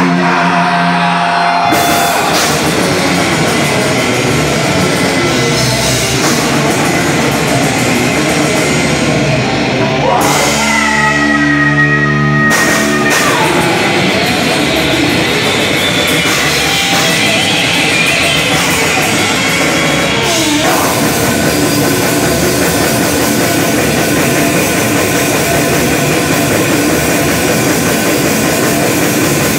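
Extreme metal band playing live at full volume: distorted electric guitars, bass and a pounding drum kit, with a vocalist. Near the start a held chord gives way to the full band, and about ten seconds in the drums drop out for a couple of seconds of ringing held guitar notes with a sliding tone before the whole band crashes back in.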